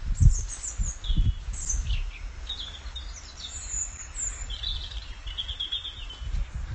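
Small songbirds chirping and trilling in short, high, repeated phrases, with a few low thumps in the first second or so and a steady low rumble underneath.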